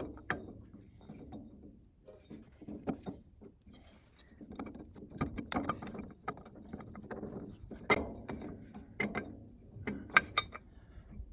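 Hand tools working on a tractor forklift's steering gear parts: irregular metal clicks, clanks and scrapes as a nut and gear are worked off a keyed shaft, with sharper knocks about 8 and 10 seconds in.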